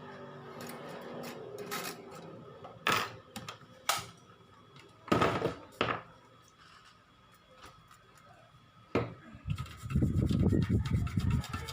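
Tools and parts being handled on a workbench: scattered clicks, knocks and short scraping sounds, with a low rumbling handling noise near the end.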